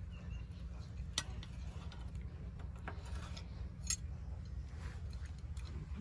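Scattered sharp metal clicks and taps from a wrench and tongs gripping and turning the nuts that hold the blades on a chaff cutter's flywheel, about one a second with the sharpest near the middle, over a steady low hum.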